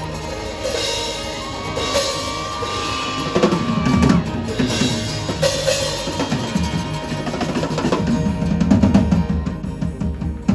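Live rock band playing the song's closing section: the drum kit plays busy fills and rolls on bass drum and snare under a held instrument tone, growing busier near the end.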